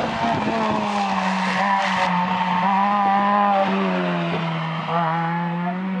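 Rally car engine held at high revs as the car approaches on a wet road and passes close by, with the hiss of its tyres on the water. The steady engine note sags slightly in pitch as the car goes past, about four seconds in.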